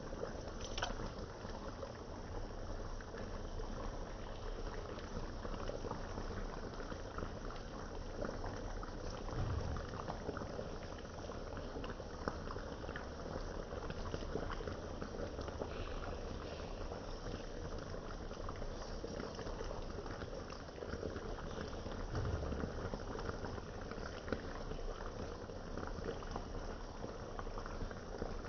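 Beef and broccoli sauce simmering in a skillet: a steady bubbling and popping as the sauce reduces and thickens, with a couple of soft low bumps along the way.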